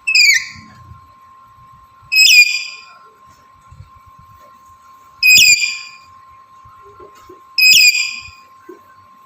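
Black-capped lory giving four loud, shrill calls two to three seconds apart, each under a second long: a male in breeding condition calling for a female.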